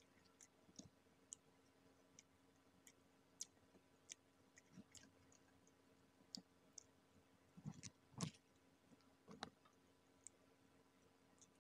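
Quiet, sparse clicks and small crunches of someone eating fried chicken with their hands: chewing and picking at the crispy pieces. The sounds are loudest in a short cluster about eight seconds in and once more a second later.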